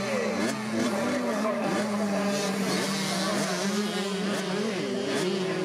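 Several small two-stroke minicross bike engines running at once, their revs rising and falling over a steady drone.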